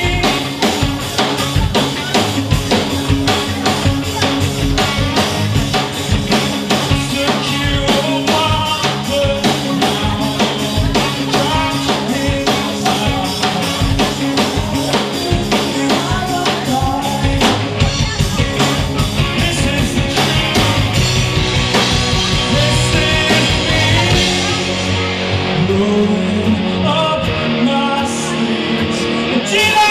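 Live rock band playing an original song: electric guitars, bass guitar and a drum kit, with a man singing lead. A little past halfway the cymbals drop back and the top end of the mix thins out.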